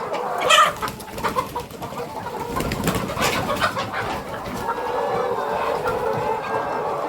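A flock of young laying hens clucking and chattering together, with one loud squawk about half a second in.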